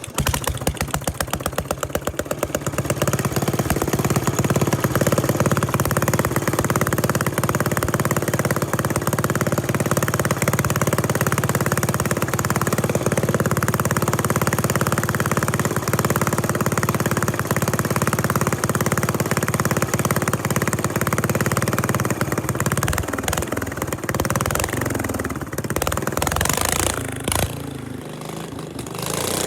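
Briggs & Stratton 13.5 hp single-cylinder lawn tractor engine running steadily with a fast, even firing pulse. Its low note changes about 23 seconds in, and the level drops a few seconds later.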